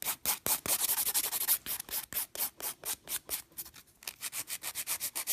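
Hand nail file rasping back and forth in quick short strokes across an acrylic-powder nail, shaping down the bulky, uneven coat.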